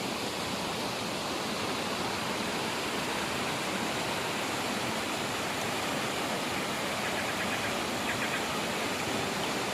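Rushing water of a mountain valley stream, a steady even rush, with a few faint high chirps about seven seconds in.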